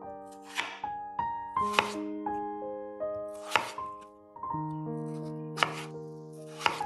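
Chef's knife slicing through peeled raw potatoes, each cut ending in a sharp knock on a wooden cutting board. There are five cuts, one to two seconds apart, over background piano music.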